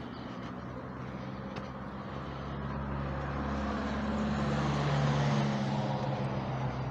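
A motor vehicle's engine passing by: a steady hum that grows louder to a peak about five seconds in, then fades away.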